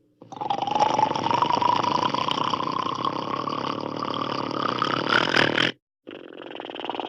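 Cartoon dinosaur roar sound effect: one long, rough roar of about five seconds that climbs slowly in pitch and cuts off abruptly. After a short gap a second, quieter raspy growl begins near the end.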